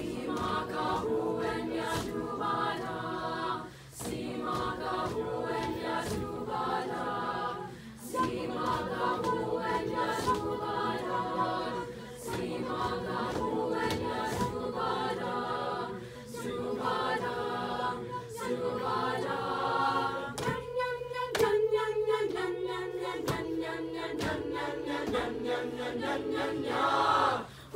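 Mixed high school choir singing in close harmony, in phrases of about four seconds with short breaks between them. Near the end the voices move to short, detached chords before stopping.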